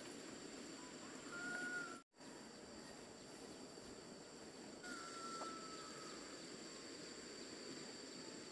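Rural outdoor ambience: insects calling steadily in two even high tones, with two short whistled bird calls, the second about five seconds in and slowly falling. The sound drops out for an instant about two seconds in.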